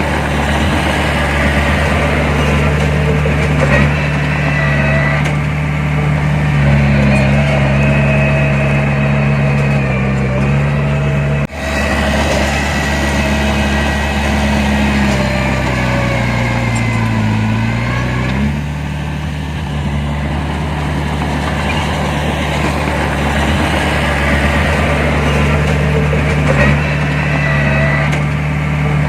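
Heavy diesel engine of earthmoving machinery running steadily, its pitch dipping and rising again about two thirds of the way through. A brief break in the sound comes a little before the middle.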